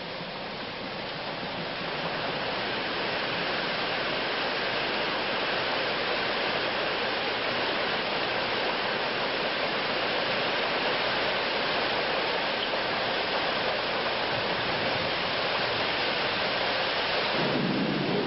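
Heavy tropical rain pouring down in a steady hiss on the tarmac, growing louder about two seconds in. Near the end it turns fuller and deeper.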